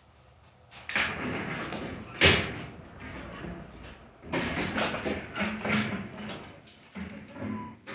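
A run of knocks, rattles and scrapes, with one sharp thump about two seconds in and another cluster of knocks in the second half.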